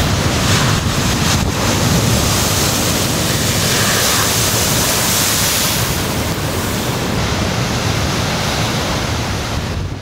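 Storm waves breaking against a rocky shore with a constant loud rush of surf and spray, while gale-force wind buffets the microphone with a deep rumble.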